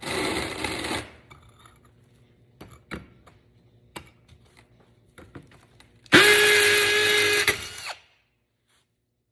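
Cordless drill running in hammer drill mode, its bit vibrating as it rotates: a short burst of about a second at the start, light clicks and knocks, then a louder run of about a second and a half with a steady motor whine that winds down about eight seconds in.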